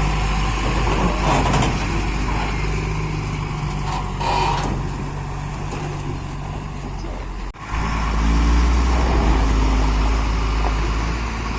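Tipper truck's diesel engine running steadily on the move, with a short hiss about four seconds in. The sound drops out briefly about halfway through.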